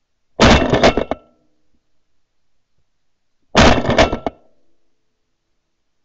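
Two loud, sudden bursts, each just under a second long and about three seconds apart, the second a near copy of the first.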